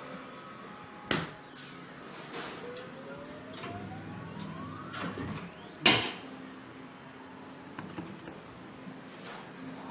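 Arcade claw machine at play: two sharp clunks, one about a second in and a louder one about six seconds in, with a few lighter clicks and a slowly rising electronic tone in between, over a steady machine hum.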